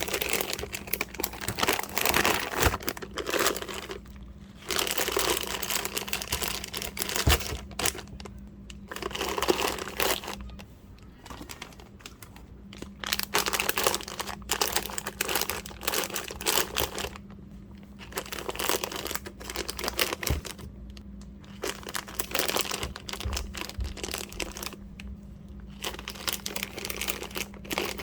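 Crinkling and rustling of packaging being handled, in irregular bouts of a second or two with short pauses between, over a steady low hum.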